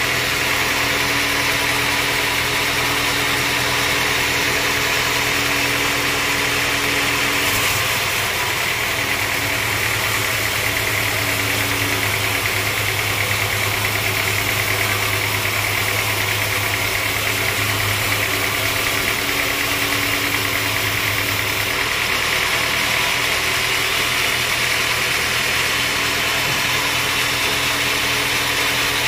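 Band sawmill running steadily as its blade cuts lengthwise through a mahogany log: a continuous machine hum with a higher band of saw noise over it. The low hum shifts about eight seconds in and shifts back about twenty-two seconds in.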